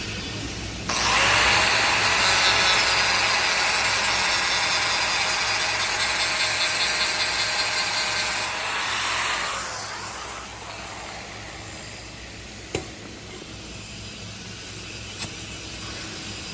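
A power tool starts about a second in, runs steadily and loudly for about eight seconds, then winds down over about a second. Two sharp clicks follow near the end.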